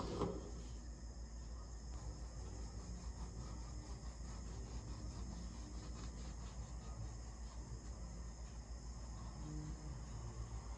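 Quiet background: a faint steady low hum under faint, rapid, evenly pulsing insect chirping.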